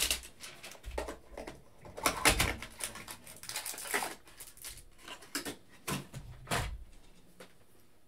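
A cardboard hanger box of football trading cards being opened by hand: irregular rustling and scraping of cardboard and cards with several sharp clicks and knocks, the last about six and a half seconds in as the stack of cards is set down on the table.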